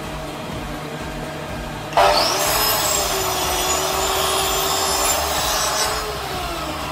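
A handheld electric power tool cutting wood: it starts suddenly about two seconds in and runs for about four seconds, a steady motor whine under the rasp of the cut, then stops and winds down.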